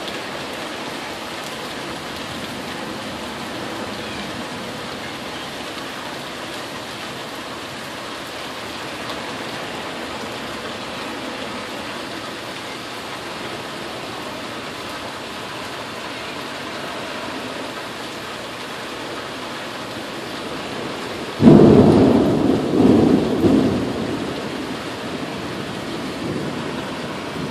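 Steady hiss of rain in a tropical storm. About 21 seconds in, a sudden loud clap of thunder comes in and rumbles on in several swells, fading over about three seconds.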